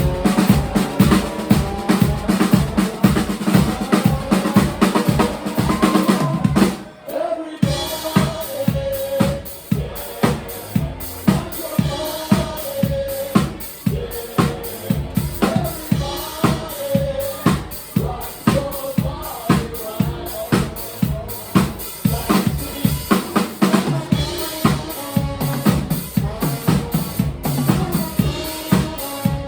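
Live band music driven by a drum kit playing a steady, busy beat of kick and snare, with a pitched melodic line over it. The band drops out briefly about seven seconds in, then the beat comes back.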